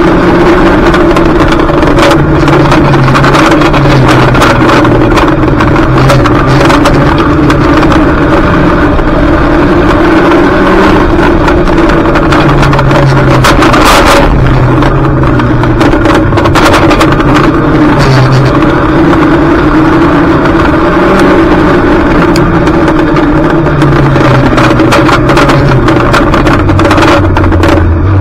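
Junior banger race car's engine running hard, its revs rising and falling with the throttle, with frequent knocks and rattles over it.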